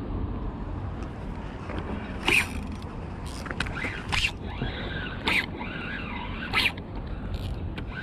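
Spinning reel being worked by hand, giving a series of short scraping, ratcheting bursts at uneven intervals from about two seconds in, over a steady low rumble.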